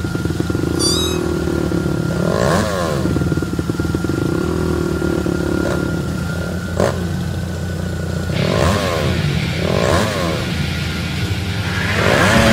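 Car engine idling, revved up three times: once early and twice near the end.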